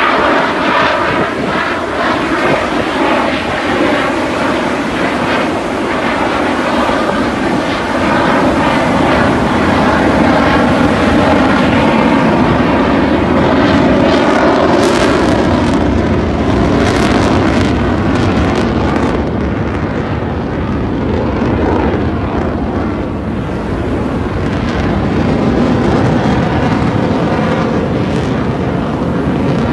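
Fighter jets flying an aerobatic display overhead: a loud, continuous jet-engine roar that swells and eases as they pass. The pitch sweeps in the first few seconds as a jet goes by.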